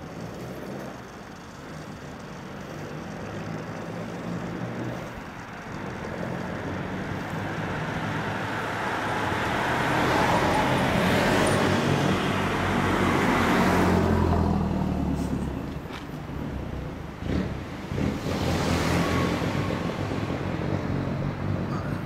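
Honda VTR250's 90-degree V-twin idling steadily through a WR'S aftermarket silencer, while road vehicles pass, swelling loudest around the middle and again near the end.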